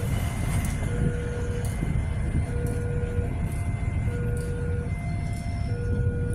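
Railway level-crossing warning alarm sounding an alternating two-tone chime, each tone lasting about three-quarters of a second, over the low rumble of a KA Prameks diesel multiple unit pulling away.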